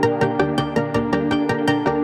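Background electronic music with a steady fast beat.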